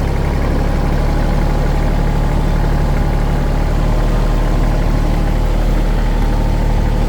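Tractor engine running steadily at an even speed, a low, constant engine hum.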